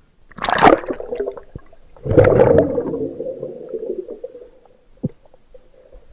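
Two loud gurgling rushes of water, about a second and a half apart, heard underwater. The second rush is longer and fades away over nearly two seconds, and a few faint knocks follow.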